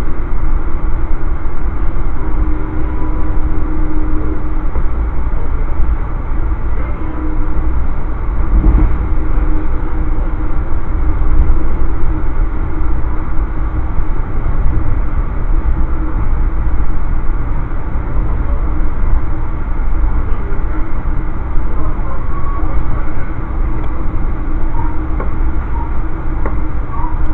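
Amtrak passenger train running at speed, heard from inside the coach: a steady low rumble of the car on the track with a faint hum.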